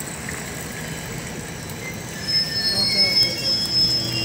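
Passenger express train running at low speed into a station, a steady rumble of wheels on rail. About halfway through, several high-pitched squeals set in and grow louder as the train slows.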